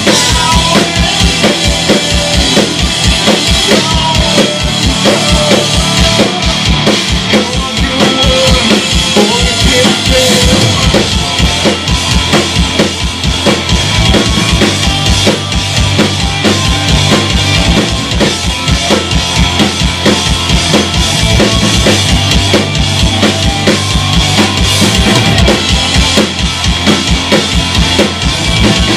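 Live rock band playing loud: electric guitars, bass guitar and a drum kit, with rapid, steady kick drum beats driving the music.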